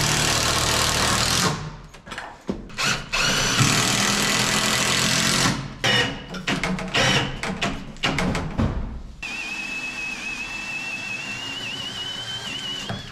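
Cordless drill driving screws into a 2x4 block that holds a shower valve, in several runs: two long pulls of the trigger, a string of short bursts, then a lighter steady whine that slowly climbs in pitch near the end.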